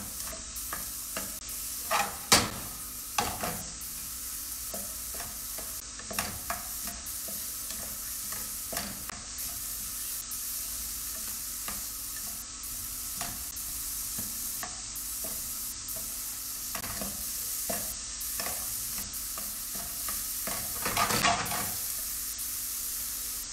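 Chopped onions and garlic sautéing in butter and olive oil in a steel frying pan: a steady sizzle, with a spatula scraping and knocking against the pan now and then as they are stirred, louder near the end.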